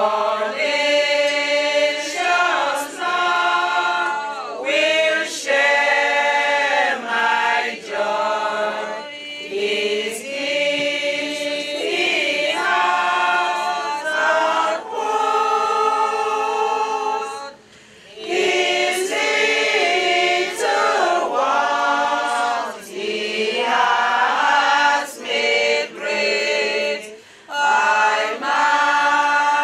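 A choir singing, with voices holding long notes in phrases and a brief pause a little past halfway.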